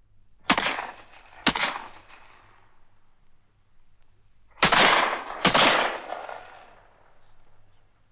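Four single gunshots in two pairs, about a second apart within each pair and three seconds between the pairs, each shot trailing off in a long echo.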